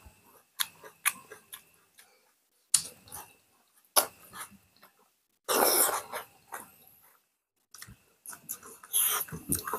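Close-up eating sounds from two people eating with their hands: wet chewing and lip-smacking clicks, coming in short bursts, with one louder rushing burst about halfway through.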